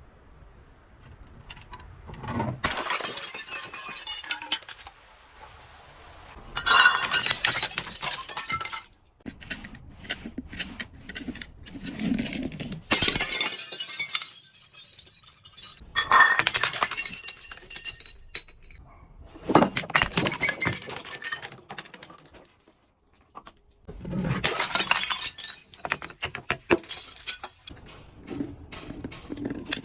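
Glass bottles breaking and being crushed: about half a dozen loud bouts of shattering and crunching glass, each lasting a second or two, with shards clinking in between.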